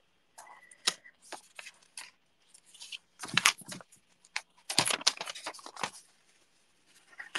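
Paper being handled: a sticky-note paper slip rustling and crinkling, with scattered light taps and clicks on a craft desk.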